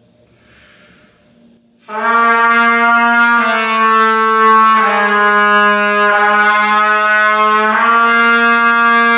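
Trumpet, after a short breath, sounding a long sustained note from about two seconds in, slurring down to a slightly lower note midway and back up to the first note near the end. The teacher hears it as blown with too much force.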